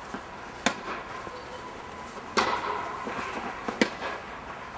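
Tennis rally: a tennis ball struck by rackets and bouncing, giving sharp pocks a little under a second in, about two and a half seconds in, and a quick pair near the end. Each pock rings on briefly in the echo of the air dome.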